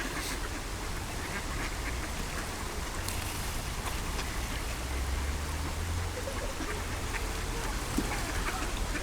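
A flock of mallards quacking, many short overlapping calls scattered throughout over a steady low rumble.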